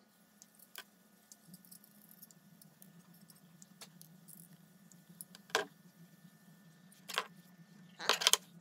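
Needle-nose pliers snipping off the ends of thin galvanized steel wire: a few sharp clicks, the loudest about five and a half seconds in, then a quick cluster of clicks near the end. A faint steady low hum underneath.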